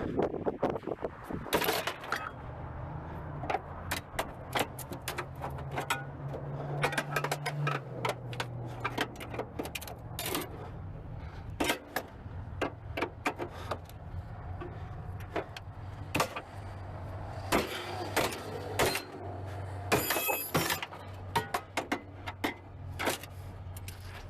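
Hand tools clinking, knocking and scraping on a car's metal parts while a part is pried and wrenched loose, with many short sharp clicks and one ringing metallic clink near the end. A steady low hum runs underneath.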